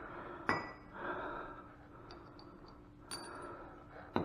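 Small metal pump parts clinking as they are set down on a concrete floor: three sharp, ringing clinks, about half a second in, about three seconds in and just before the end, with a few light ticks between.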